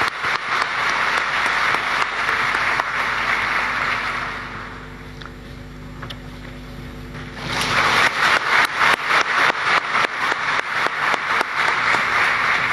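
Audience applauding. The clapping dies down about four seconds in, leaving a low steady hum, and picks up again about three seconds later, running on until near the end.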